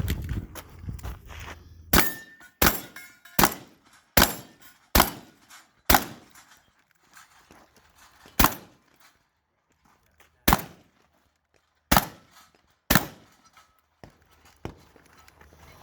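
A string of about ten gunshots: six in quick succession, then four more at wider, uneven spacing.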